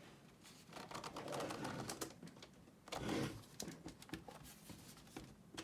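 Scattered plastic clicks and scraping as a pry tool works around the edge of a laptop's plastic keyboard bezel, prying it loose from its clips. A brief low hum-like sound comes about three seconds in.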